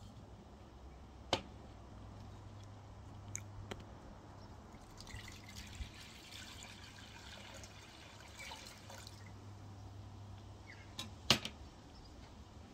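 Water poured from a glass jug into a bamboo salad bowl for about four seconds, starting about five seconds in. There is a sharp knock about a second in, and a louder knock near the end.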